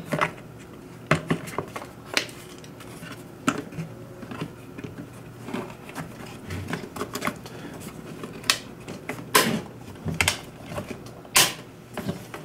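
Hard plastic clicks and knocks of a BMW S1000RR airbox being handled as a panel air filter is pressed into it and the cover is fitted over it. They come irregularly, with the loudest knocks about nine and eleven seconds in.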